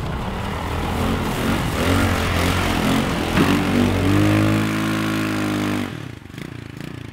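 Go-kart's GY6 150cc single-cylinder scooter engine revving hard under load as the kart drives through mud, held at high revs for a couple of seconds, then dropping suddenly to a fainter run near the end.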